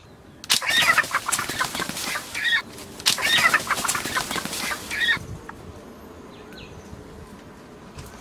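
A wild chicken squawking and flapping its wings hard in two loud bursts of about two seconds each, with a short break between.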